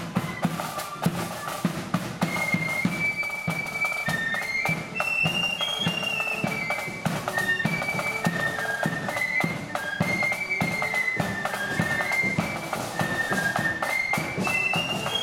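Marching flute band playing a tune in unison on flutes over a steady drum beat.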